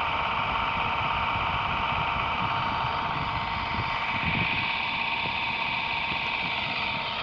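Radio-controlled model helicopter running on the ground: its motor and spinning rotor blades make a steady whine with two held tones over a whirring noise.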